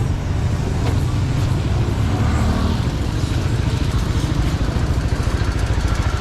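Road traffic: motor vehicle engines running close by, a steady low rumble with a rapid flutter.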